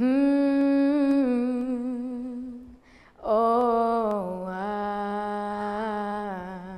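A woman singing alone without accompaniment: two slow phrases of long held notes with vibrato, each settling down to a lower note, with a short breath between them about three seconds in.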